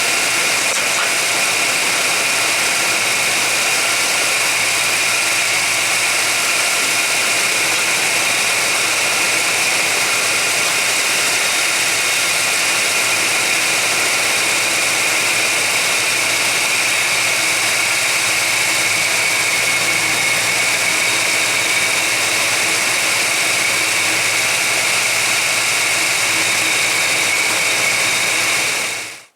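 GMC Jimmy engine idling steadily under a constant hiss, with a thin high whine held over it. The idle is rougher than usual, which the owner puts down to a suspected vacuum leak.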